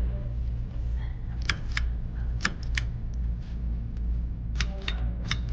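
Ceiling fan pull-chain switches clicking: about seven sharp clicks, mostly in quick pairs, in two groups, over a steady low hum.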